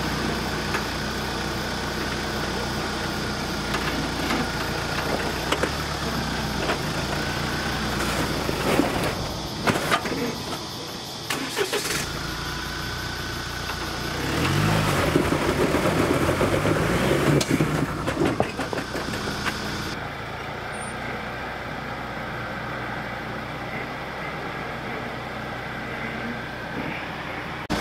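Jeep Wrangler JK8 pickup's engine running as it crawls over a rock step, revving up and down for a few seconds about halfway through.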